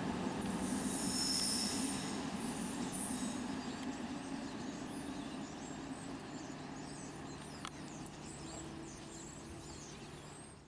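Passenger train running on the rails, with high-pitched wheel squeal in the first couple of seconds, the rolling noise fading steadily away.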